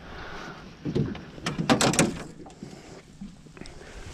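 Clicks and knocks from fishing gear being handled in a small boat: a rubber rod strap and rod holder being worked by hand. There is a soft knock about a second in and a quick run of clicks around a second and a half to two seconds in.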